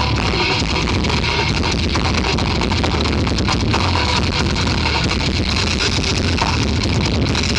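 Harsh noise music: a steady, loud wall of dense distorted noise over a low rumbling drone, with no beat or melody standing out.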